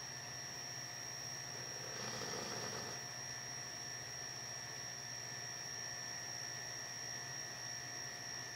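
Sleeping Akita dog snoring: one breathy snore swells and fades about two seconds in, over a steady electrical hum.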